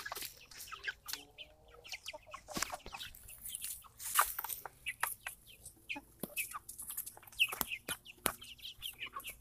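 A flock of young Red Ranger broiler chickens clucking in short, scattered calls.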